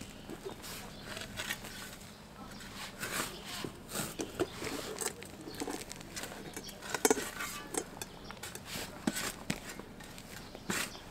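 Garden spade digging into soil: irregular crunching and scraping as the blade is pushed in and levered, with the loudest stroke about seven seconds in.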